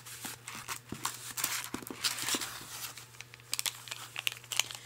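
Packaging crinkling and rustling in short, irregular rustles as items are handled, densest around two seconds in.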